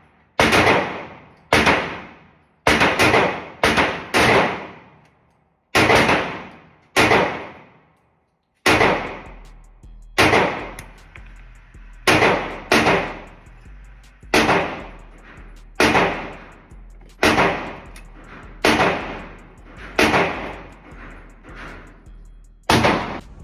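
Handgun shots, likely from a .40 caliber pistol, fired one at a time at an uneven pace: about twenty over the stretch, some in quick pairs, each with a ringing echo tail. A steady low hum joins about nine seconds in.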